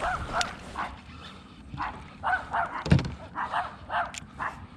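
Short animal calls, repeated two or three times a second with a brief pause, and a single low thump about three seconds in.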